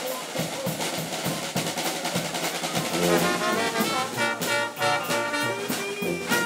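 A New Orleans brass band playing. A snare drum beats out a rhythm alone at first, and brass horns, a trumpet among them, come in about three seconds in.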